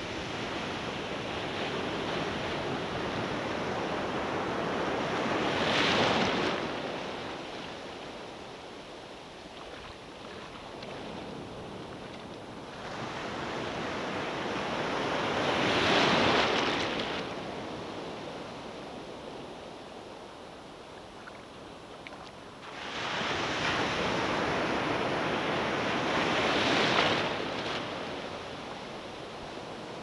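Ocean surf breaking and washing over the sand right at the microphone: three surges of rushing, fizzing foam, loudest about six, sixteen and twenty-seven seconds in, easing to a softer hiss between.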